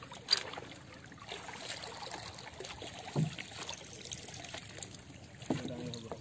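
Faint water trickling and lapping around a small wooden outrigger canoe on calm sea, with a sharp light knock just after the start and a dull thump about three seconds in.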